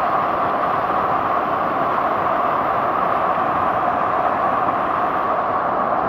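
Rushing water of a mountain river, a steady unbroken rush with no change in level.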